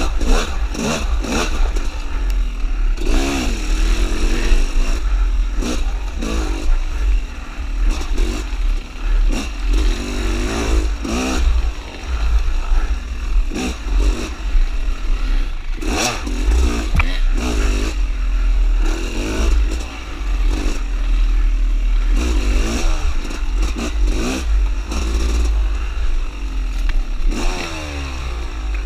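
Dirt bike engine revving up and down again and again as the throttle is worked on a tight trail, with knocks and clatter from the bike over rough ground. A steady low rumble, wind on the helmet camera's microphone, runs underneath.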